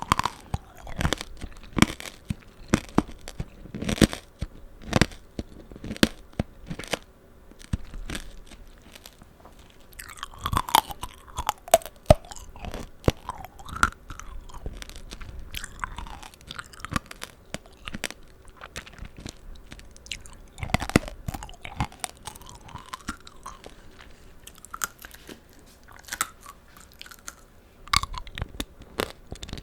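Close-miked chewing of tanghulu, candied fruit in a hard sugar shell: many sharp cracks as the glassy coating breaks between the teeth, with wet, juicy chewing sounds in between.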